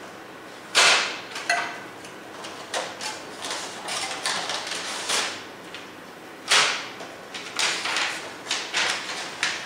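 Plastic clacks and rattles from the automatic document feeder of a Kyocera KM-C2525E copier as its covers and levers are opened to clear a paper jam, with paper rustling as the jammed sheet is pulled out. Two sharp, loud clacks come about a second in and about six and a half seconds in.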